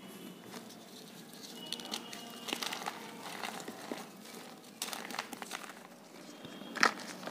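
Fingers crushing dry reformed powder chunks over loose powder. There are scattered crunches and crackles as the pieces break and crumble, with one sharp snap near the end.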